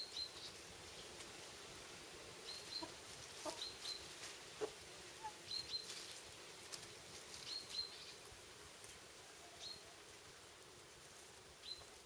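Small flock of hens foraging in grass, faint: a few soft low clucks and short high chirps, often in pairs, every second or two.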